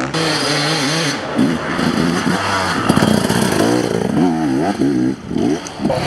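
Enduro motorcycle engine revving hard, its pitch rising and falling again and again as the rider works the throttle through the gears.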